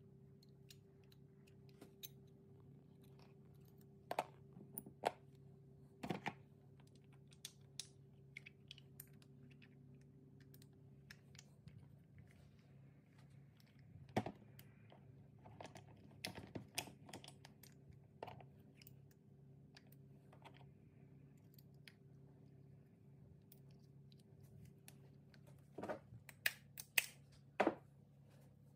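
Scattered light metal clicks and taps as the pads, pins and clips of a motorcycle brake caliper are handled and fitted by hand, over a steady low hum. The clicks bunch together about four to six seconds in, again around fourteen to seventeen seconds, and in a quick run near the end.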